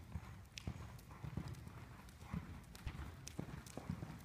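Hoofbeats of a horse loping on the soft dirt footing of an indoor arena: a run of low, dull thuds several times a second.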